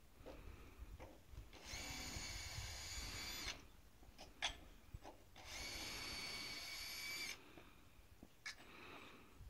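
Cordless drill-driver running in two bursts of about two seconds each, driving out the screws that hold a flagpole to a roof ridge, with a few short clicks between.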